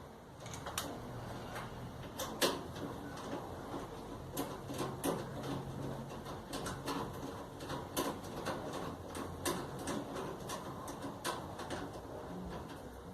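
Irregular clicks and light knocks of parts and tools being handled, over a faint low hum.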